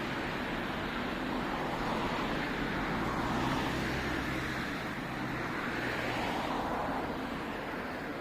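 A motor vehicle passing: a low engine hum under a broad rush of road noise that builds to its loudest about halfway through, then eases off.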